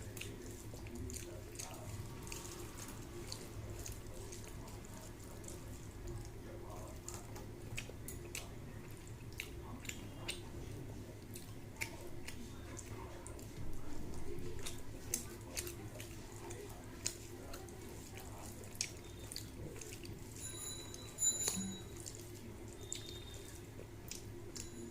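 Wet eating sounds of rice with rui fish curry: soft squishing, lip smacks and many small clicks. A brief ringing clink comes about 21 seconds in.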